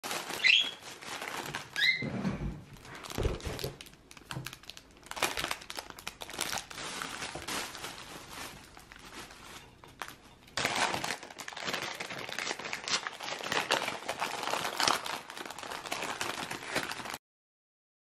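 A thin plastic bag crinkling and rustling as it is handled, busiest in the second half. Two short bird chirps come in the first two seconds, and a couple of dull thuds around three seconds in; the rustling stops abruptly near the end.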